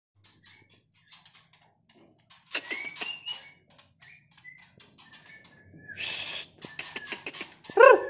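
Caged songbirds calling: a stream of rapid clicking chips and short whistled notes, a loud harsh burst about six seconds in, and a loud call just before the end.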